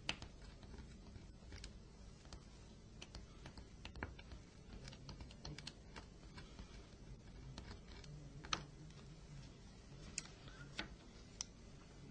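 Faint, irregular small clicks and scrapes of a plastic opening tool and tweezers working on a mobile phone's plastic parts during disassembly, with a few sharper ticks.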